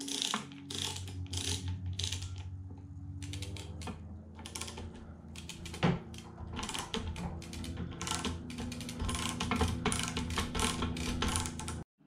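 Lever-action chain hoist worked by hand: runs of rapid ratchet-and-pawl clicking with each stroke of the lever as a heavy load is let down gently the last few inches. A steady low hum runs underneath.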